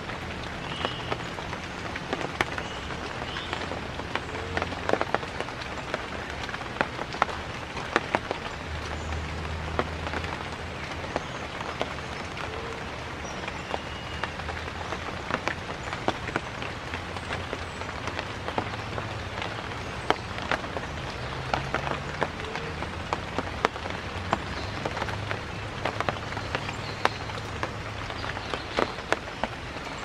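Steady rain falling on leaves, an even hiss with many separate sharp drop hits throughout.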